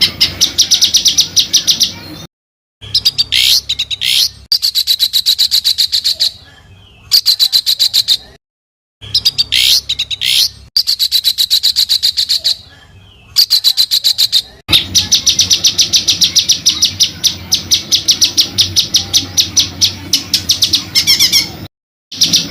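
Songbird singing rapid rolling runs of evenly repeated high notes, several seconds per run. The runs are broken off by abrupt moments of dead silence, as in an edited, looped recording.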